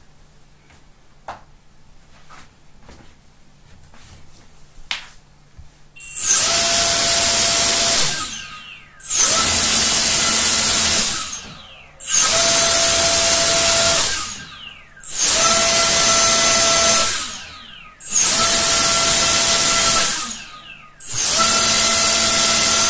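Hexacopter brushless motors with propellers run one after another in a motor test at 70% throttle: six spin-ups of about two seconds each, roughly three seconds apart, each a steady whine with propeller wash that winds down when the motor stops. Faint clicks and handling knocks come before the first motor starts.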